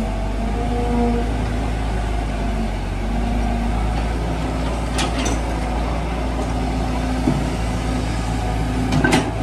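Caterpillar hydraulic excavator's diesel engine running under load with a steady low rumble. Hydraulic whine tones rise and fall as the boom and bucket lift and lower soil, with a couple of sharp clicks about five and nine seconds in.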